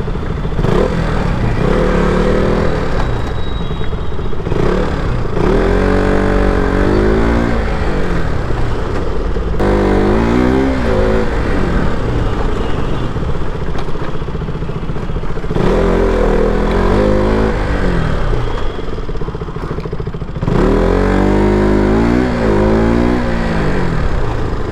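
KTM RC200's single-cylinder engine pulling under throttle, its pitch rising and dropping back about five times as the bike accelerates and eases off, over a steady low rush.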